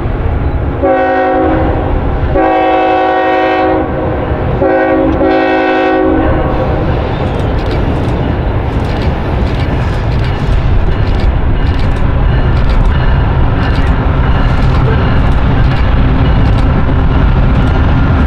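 Multi-chime air horn on a CSX GE ES44AC diesel locomotive hauling a loaded coal train: three blasts in the first six seconds, the last with a brief break in it. Under and after the horn is the steady rumble of the locomotive's diesel engine, and from about seven seconds in there is scattered clicking of wheels over the rails as the train comes closer.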